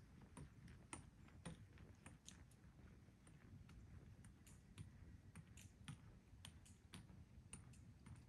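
Near silence with faint footsteps of hikers walking on a bush track, short sharp steps roughly two a second.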